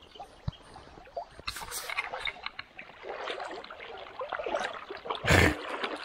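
Water splashing and gurgling in irregular bursts as a carp thrashes through shallow water, with one louder burst a little past five seconds in.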